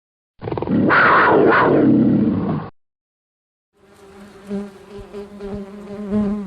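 A loud, roughly two-second sound with sliding pitch stops abruptly. After a second of silence, a steady fly-like insect buzz starts about four seconds in and keeps going.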